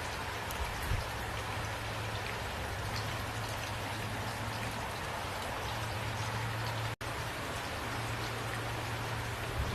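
Steady rain falling, an even hiss with scattered drop taps. The sound cuts out for an instant about seven seconds in.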